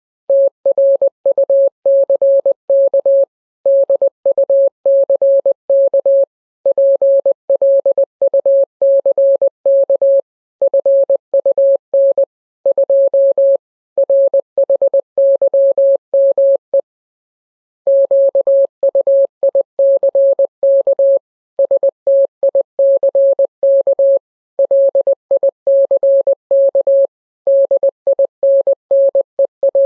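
Morse code beeps: a single steady mid-pitched tone keyed on and off in short dots and longer dashes, in groups split by brief gaps, with a pause of about a second a little past halfway.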